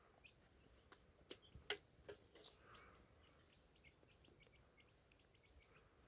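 Faint small-bird chirping, short high chirps scattered throughout. A few sharp clicks or snaps come in a cluster between about one and two and a half seconds in, the loudest just before two seconds.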